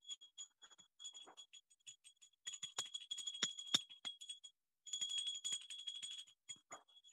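High-pitched electronic beeping tone, broken into uneven short pulses, with a few sharp knocks about three to four seconds in.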